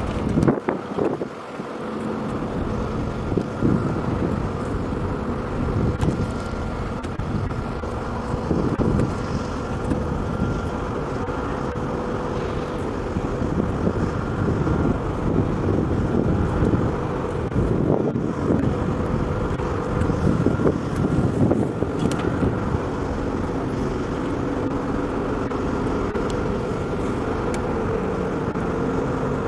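Small unmanned crop-spraying helicopter running steadily with a constant droning hum, with wind on the microphone.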